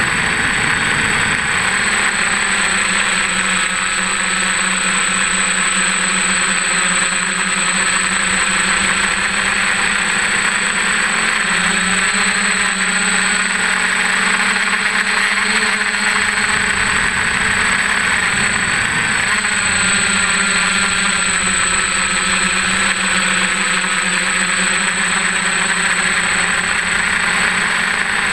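F550 hexacopter's brushless motors and propellers running steadily in flight, heard from a camera mounted on the frame: a constant buzzing whine whose pitch shifts slightly now and then.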